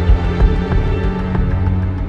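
Background music with sustained low notes and a light, steady beat.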